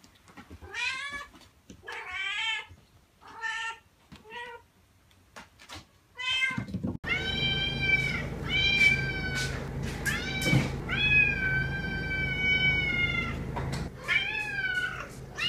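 Cats meowing. First come several short meows that bend up and down in pitch. Then, from about seven seconds in, a Siamese cat gives a string of long, loud, drawn-out meows one after another over a steady low hum.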